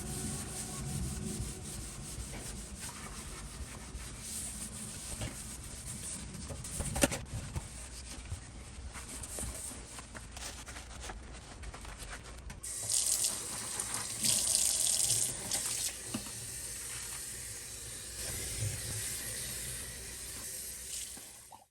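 Water running from a tap, with small handling knocks and a sharp click about seven seconds in; the flow gets louder and hissier for a few seconds starting about 13 seconds in.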